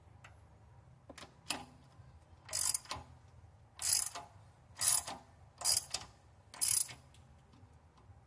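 Ratchet wrench on a 13/16 spark plug socket clicking in short strokes, about one a second, as a new spark plug is run into the engine.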